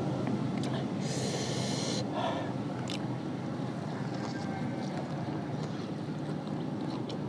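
A person eating: chewing and mouth clicks, with a loud hissing breath about a second in, over a steady low rumble of background noise.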